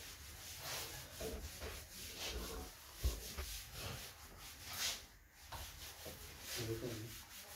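Board duster wiped back and forth across a chalkboard, erasing chalk writing: a run of scratchy rubbing strokes, about two a second.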